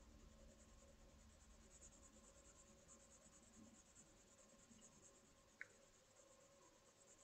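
Faint scratching of an HB graphite pencil shading on paper in back-and-forth strokes, with a single light click about five and a half seconds in.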